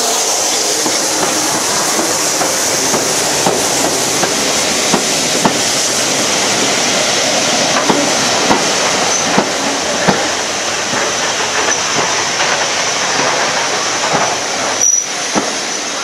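Railway train running along the track: a steady running noise with irregular clicks and knocks from the wheels passing over the rail joints.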